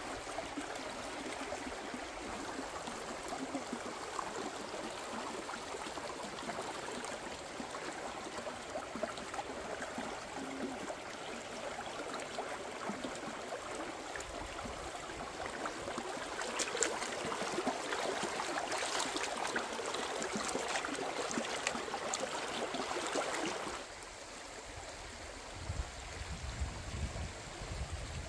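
Shallow stream running over rocks, a steady rushing trickle of water. About two-thirds of the way in it grows louder and busier for several seconds, then drops suddenly to a quieter flow, with some low rumbling near the end.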